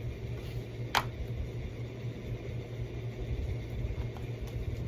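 A plastic Blu-ray case clicks sharply once about a second in, with a fainter click near the end, over a steady low background hum.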